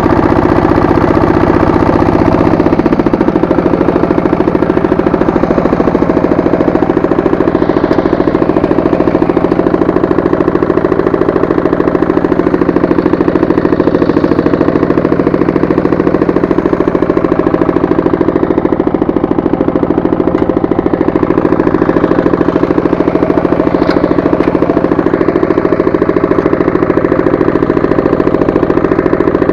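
Walk-behind tractor's engine running steadily under load while its rotary tiller works the soil, its note shifting about two and a half seconds in.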